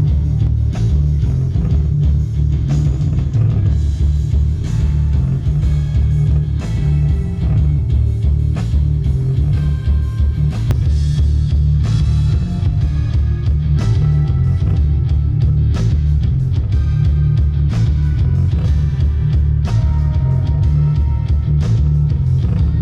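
Background rock-style music with a heavy bass beat and guitar.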